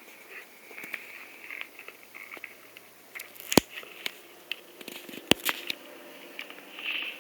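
Siberian huskies chewing a pork-hide bone: irregular small crunches and clicks, with two sharp, louder cracks about three and a half and five seconds in.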